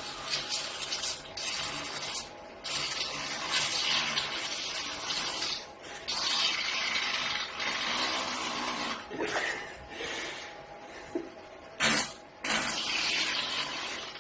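Human flatulence: a long, airy, hissing fart in several drawn-out stretches broken by brief pauses. There is a short, sharp, louder burst near the end.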